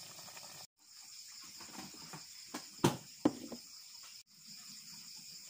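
Steady high-pitched insect chirring in the background, with two sharp knocks about half a second apart near the middle.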